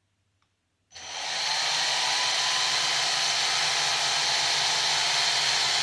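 Syma X8HG quadcopter's four motors and propellers starting up about a second in and quickly rising to a steady, high whirr.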